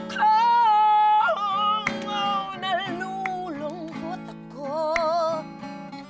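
A woman singing a blues melody with vibrato over an acoustic guitar accompaniment: a long held high note in the first second, then a run of bending, sliding notes.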